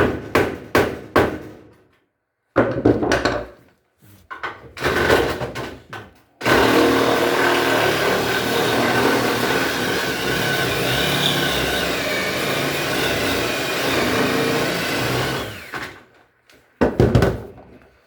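Several hard metal knocks and scraping on a rusted washing machine cabinet that is being broken free. About six seconds in, a motorised tool starts and runs steadily for about nine seconds, then cuts off. One more knock follows near the end.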